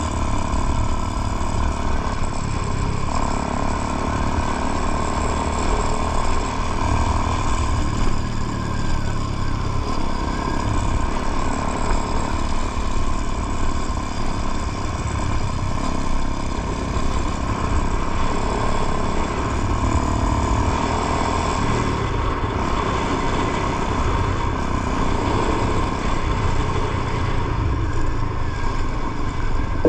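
Motorcycle being ridden at a steady pace: the engine running with a constant rushing noise of wind and road over it.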